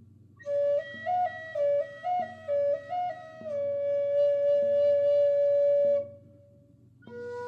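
Flute playing a slow melodic phrase: a run of short notes stepping up and down, then one long held note that fades out about six seconds in. After a short pause, a new phrase starts on a lower note near the end.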